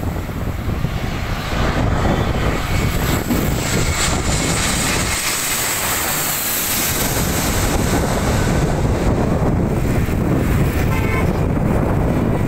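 Twin-engine jet airliner on final approach with its landing gear down, passing low overhead: a loud, steady jet noise whose high hiss grows strongest as the plane goes over, then thins out as it heads away toward the runway.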